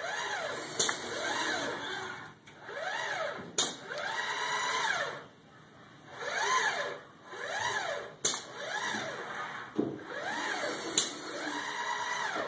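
SCARA robot arm's motors whining through a move, the pitch rising and falling again and again as the joints speed up and slow down, with four sharp clicks along the way.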